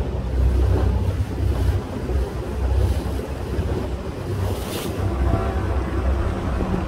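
Wind buffeting the microphone aboard a moving water taxi, over the low rumble of its engine and water washing along the hull. A brief hiss comes about four and a half seconds in.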